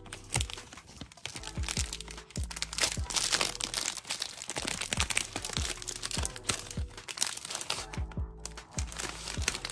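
Plastic wrapper of a pack of Peeps marshmallow bunnies crinkling and crackling as it is handled and opened, over background music with a steady beat.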